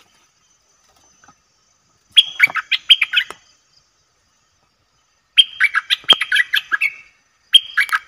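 A bulbul singing: three bursts of rapid, chattering notes, about a second or more each, the first about two seconds in and the last two close together near the end.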